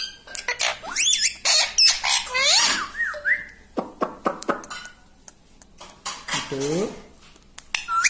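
Rose-ringed parakeet chattering and calling in quick, wavering high notes, with a few sharp clicks around four seconds in as its beak taps the phone screen, and a lower-pitched call near the end.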